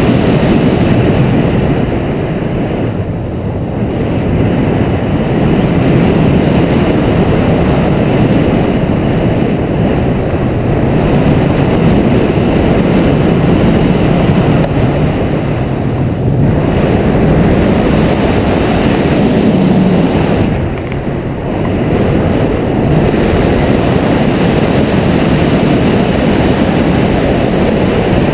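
Steady, loud wind buffeting the microphone of a hang glider's wing-mounted camera in flight, a low rushing noise that eases briefly a couple of times.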